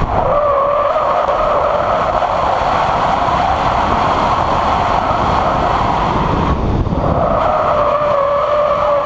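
Nissan 200SX S13's turbocharged CA18DET four-cylinder engine held at high revs while the rear tyres squeal in a sustained drift. The sound drops away briefly about seven seconds in, then picks up again.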